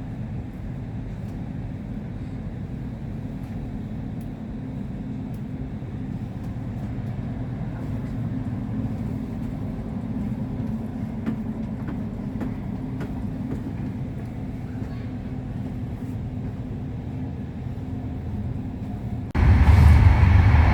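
Steady low rumble of a moving intercity train heard from inside a passenger carriage, with faint scattered clicks. Near the end the noise suddenly becomes much louder and deeper.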